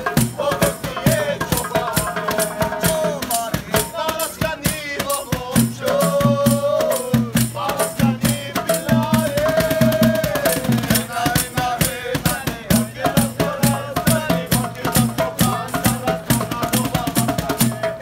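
Live street-band music: congas and a cajon playing a quick, busy rhythm under an acoustic guitar, with a sustained melody line that glides in pitch over the top.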